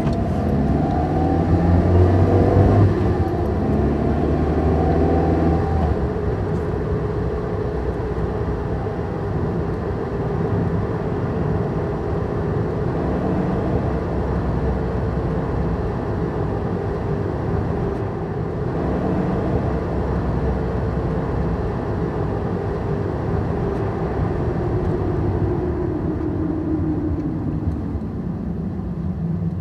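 A car's engine and road noise heard from inside the cabin as it drives. The sound is a steady low rumble whose pitch drifts slowly up and down, a little louder in the first few seconds.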